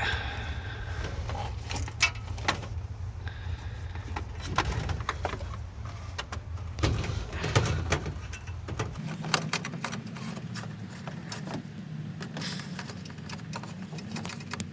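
Handling noises of an elliptical machine's wiring cable being fed through its metal frame tube: scattered clicks, knocks and scrapes, several sharper knocks near the middle, over a low background hum.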